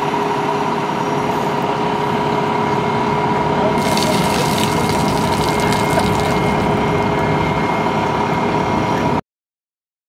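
Concrete mixer truck running steadily, with a constant whine over the engine; about four seconds in, a splash of water joins it for a second or so. The sound cuts off suddenly near the end.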